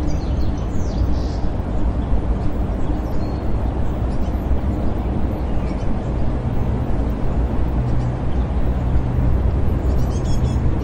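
City park ambience: a steady rumble of distant traffic with a low hum underneath, and a few bird chirps about a second in and again near the end.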